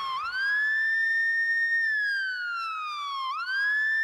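Police car siren wailing: the pitch sweeps up quickly, holds, slides slowly back down, and sweeps up again about three seconds in.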